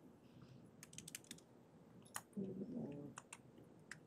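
Faint computer keyboard keystrokes: a quick run of clicks about a second in, then a few scattered single key presses.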